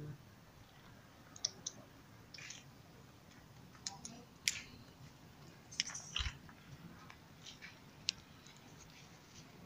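Faint, scattered crunches and clicks, with one dull thump about six seconds in, from people shifting about on gritty rubble.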